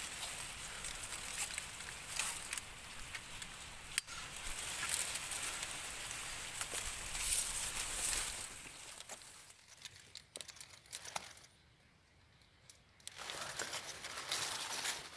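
Close rustling and crinkling noise with a sharp click about four seconds in. It drops to near quiet for a second or so after the middle, then starts again.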